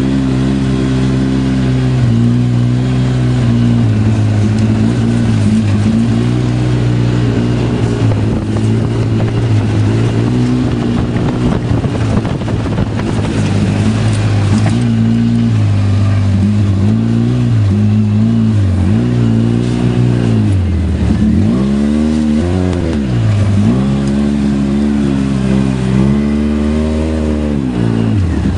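Polaris RZR 800 side-by-side's twin-cylinder engine running under load as it drives through snow. The engine holds a steady pitch for most of the time, then in the last third the revs repeatedly drop and climb back up.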